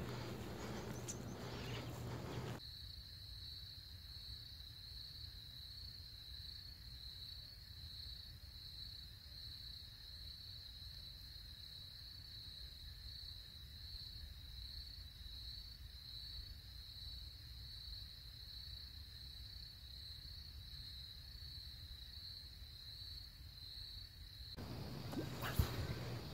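An insect's faint, continuous high-pitched trill on one steady note with a slight regular pulse, over a low rumble. It starts about two and a half seconds in and cuts off abruptly near the end.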